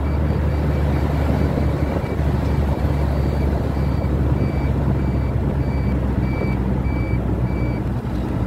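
Steady low rumble of a vehicle on the road, with a high electronic beep repeating about twice a second throughout.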